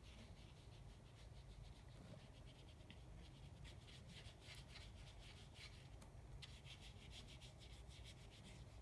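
Faint scrubbing of a watercolour paintbrush on paper: a quick run of short back-and-forth strokes with a brief pause partway through, over a steady low room hum.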